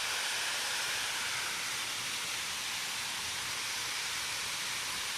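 Steady hiss of river water running over stones and falls.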